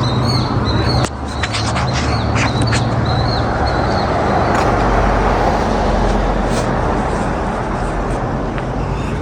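A car passes on the street, its tyre and engine noise swelling to a peak midway and then fading. Small birds chirp in quick repeated calls through the first few seconds.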